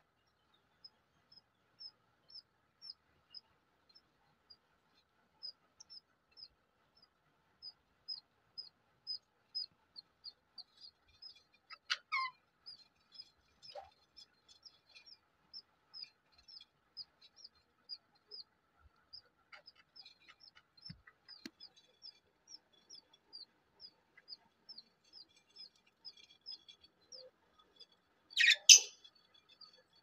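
Young parrot chick peeping: a steady series of short, high, slightly falling peeps, about two a second. A single louder, sharp sound comes near the end.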